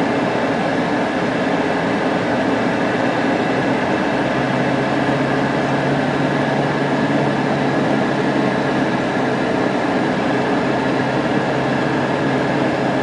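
Steady engine and road noise of a car driving slowly, heard from inside the cabin; a low steady hum joins about four and a half seconds in.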